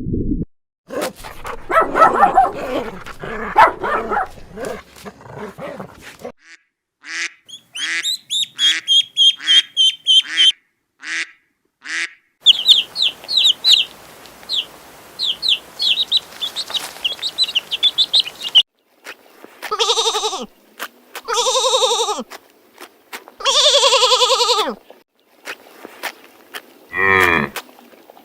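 Farm animals calling one after another: rapid high-pitched chirps through the middle, then three long wavering calls, and a lower call near the end.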